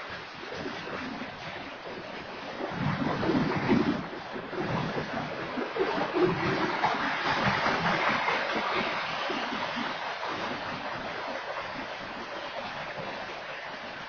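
Freight train's tank cars and covered hoppers rolling past, a steady noise of steel wheels on rails that swells a few seconds in and again near the middle. No horn.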